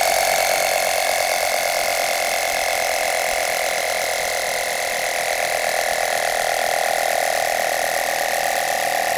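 Small electric tire-inflator compressor built into a Wagan Tech jump starter, running steadily and noisily as it pumps air up toward its roughly 80 psi pressure-switch cut-off. Its pitch sinks slightly as the pressure builds.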